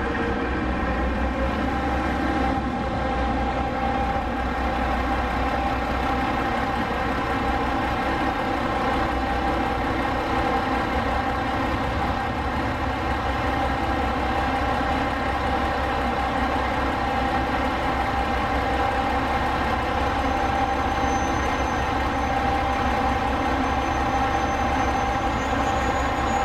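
Steady engine drone of a train standing at the platform, running at idle. The drone is an even, unchanging hum made of several tones, and a faint high whine joins it near the end.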